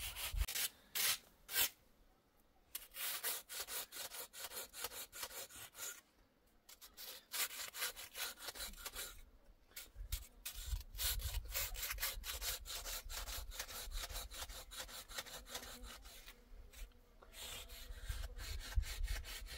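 Rapid, repeated rough scraping strokes in several runs, broken by short pauses.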